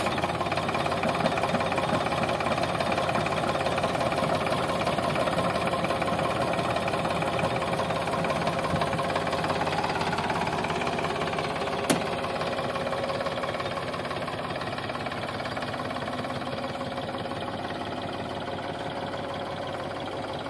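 Sonalika DI 745 III tractor's three-cylinder diesel engine running steadily, with a single sharp click a little past halfway, after which it is slightly quieter.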